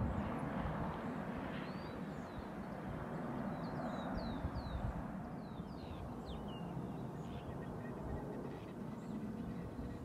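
Outdoor ambience: small birds chirping briefly now and then over a steady rushing background noise.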